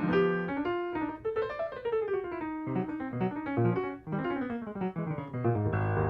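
Jazz piano solo with quick runs of single notes over chords, including a descending line in the first seconds. Near the end fuller chords with a strong low bass come in.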